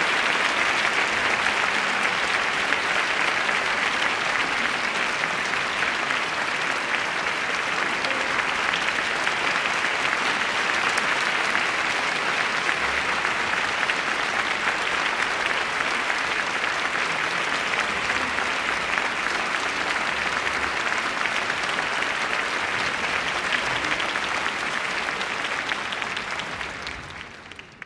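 Theatre audience applauding steadily through a ballet curtain call. The applause fades out near the end.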